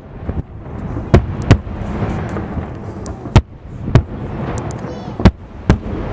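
Aerial fireworks shells bursting: about six sharp bangs at uneven intervals over a steady low background rumble.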